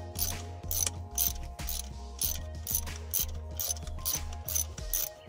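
Ratchet wrench loosening a bracket bolt, clicking in short even strokes about twice a second.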